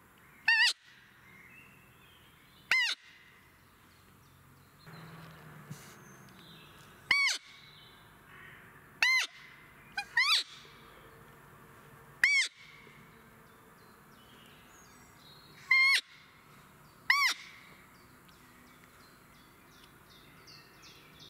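A roebuck barking in alarm: about nine short, loud barks at uneven gaps of one to four seconds. This is the call of a roe deer that has sensed people and is bounding off.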